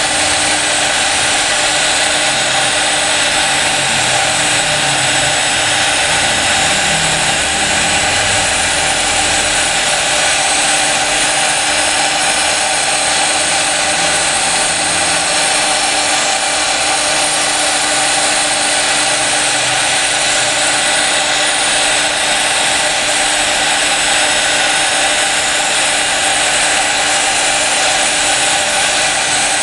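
CNC router's spindle running steadily while its fine engraving bit cuts a line into a glass sheet, giving an even high hiss with a constant tone in it. Lower tones waver during the first half as the head moves along the pattern.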